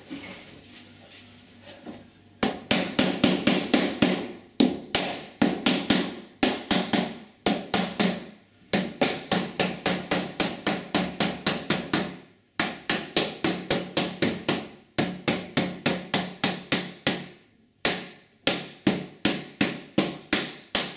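Nylon mallet tapping a uPVC glazing bead into its groove around a door panel: runs of quick, sharp taps, about four or five a second, with short pauses between runs. The taps start a couple of seconds in.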